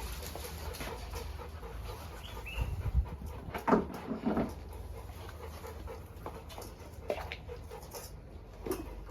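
Dogs waiting to be fed give a few short whines and yelps, the loudest pair a little under four seconds in, over a steady low rumble.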